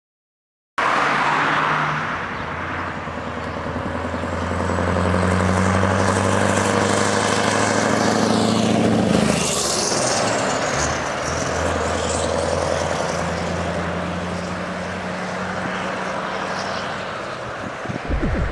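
Scania R500 V8 diesel truck running. About nine seconds in it drives past, its noise sweeping down in pitch as it goes by, and the engine sound carries on steadily afterwards.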